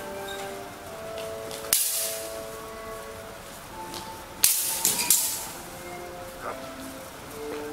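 Steel broadswords clashing: a sharp clang a little under two seconds in, then two more about half a second apart around four and a half to five seconds, each leaving the blades ringing.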